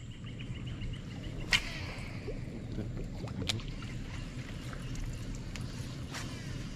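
Low steady rumble with a few sharp clicks and splashes from casting and working topwater lures on a baitcasting rod. The loudest click comes about a second and a half in, trailing off in a falling hiss.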